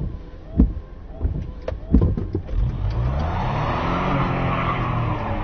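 A few sharp knocks, then a car engine rising and falling in pitch over about three seconds.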